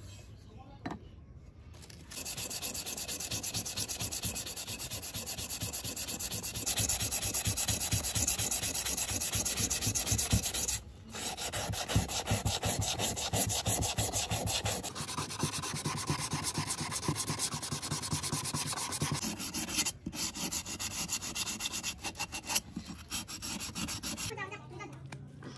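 Abrasive sanding on a motorcycle part being restored: a continuous fast scraping that starts about two seconds in, breaks off briefly twice and stops near the end.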